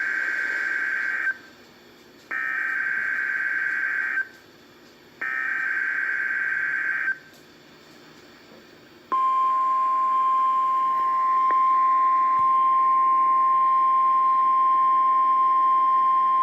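NOAA Weather Radio SAME alert header: the end of one burst of warbling digital data tones, then two more bursts of about two seconds each with a second's gap between. About nine seconds in, a steady single-pitch 1050 Hz warning alarm tone starts and holds, the signal that switches on weather alert receivers.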